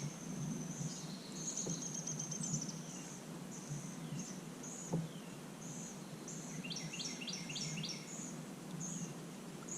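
Outdoor birdsong: short high chirps repeat about twice a second, with a fast run of repeated notes about seven seconds in. A single light knock comes about five seconds in.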